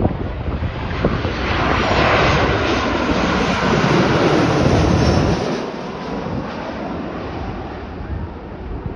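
Jet noise from a TUI Boeing 737's twin turbofan engines passing low overhead on final approach, gear down. The noise swells to a loud peak from about two to five seconds in, then the low rumble drops off sharply as the aircraft passes and moves away toward the runway.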